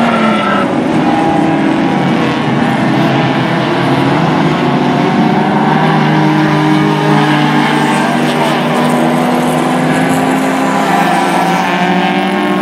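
Racing car engine running hard at speed, a steady engine note whose pitch drifts slowly up and down.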